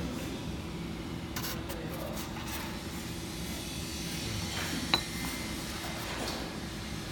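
Light handling sounds of fishing line being pulled and rubbed against cast-iron weight plates, over a steady low hum. About five seconds in there is a single sharp metallic clink with a brief ring.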